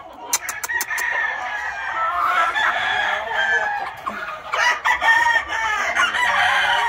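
Game roosters crowing over one another in drawn-out calls, with chickens clucking, and a few sharp clicks about half a second in.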